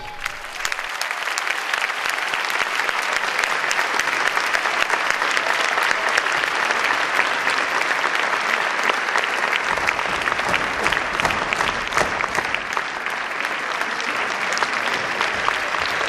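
Large audience applauding: dense clapping that builds over the first couple of seconds, then holds steady.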